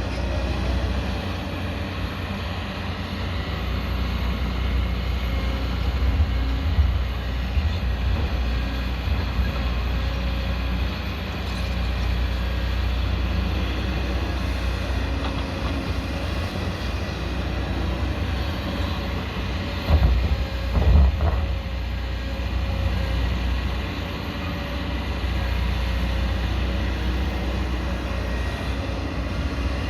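A 22-tonne-class excavator's diesel engine running steadily while it digs. Two loud knocks come about two-thirds of the way through.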